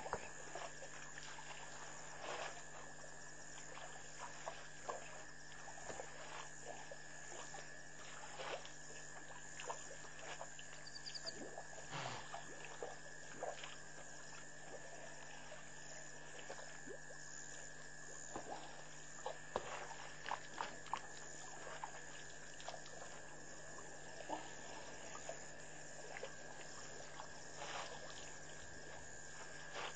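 Elephants drinking at a waterhole: irregular splashes and trickles of water as they draw it up with their trunks and let it run, over a steady high-pitched drone and a low hum.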